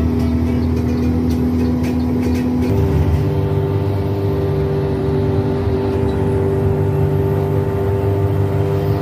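Bus engine running steadily under way, its hum stepping up to a higher pitch about three seconds in and holding there.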